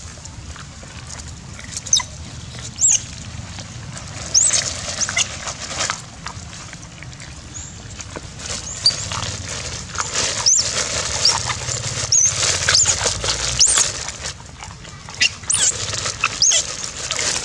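Young long-tailed macaques giving many short, high-pitched squeaks while begging for food, more of them in the second half.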